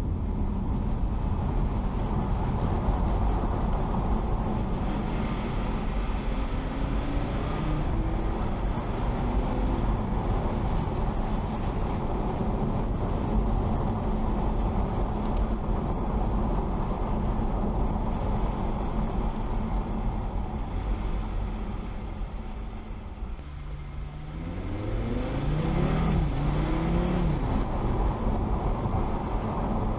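Audi TT RS's turbocharged five-cylinder engine and road noise while the car is driven at a steady pace. Near the end it eases off, then accelerates hard, the revs rising in three quick sweeps.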